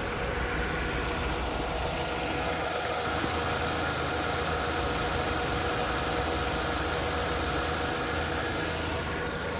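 Mercedes-Benz W210's M111 four-cylinder petrol engine idling steadily, just restarted after a fresh oil change.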